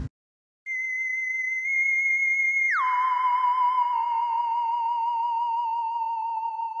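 Theremin-like electronic tone laid over the edit: a high note held steady, then gliding down about an octave around three seconds in and holding there with a slight wobble as it slowly fades.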